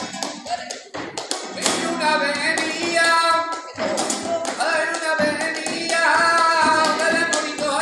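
Live flamenco bulería: sung cante over rhythmic palmas hand-clapping and flamenco guitar. The singing swells from about a second and a half in, over sharp, steady clap strokes.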